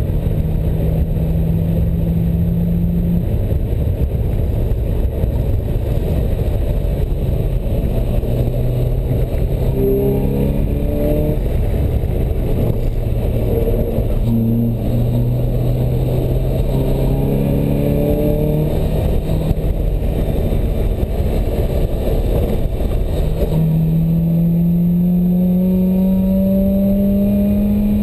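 Open-top sports car's engine heard from the cockpit while lapping a circuit: its note climbs through the revs, drops back and climbs again as the car accelerates through the gears and eases off for corners, with a strong rise near the end. Heavy wind and road noise run underneath.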